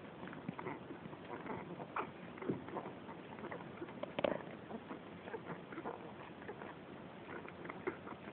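Eleven-day-old Cairn Terrier puppies nursing, making small squeaks and soft suckling and clicking sounds, with one louder squeak a little over four seconds in.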